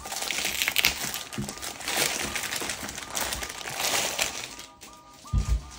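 Clear plastic packaging bag crinkling and rustling as it is pulled off a GPU water block, dying away after about four and a half seconds.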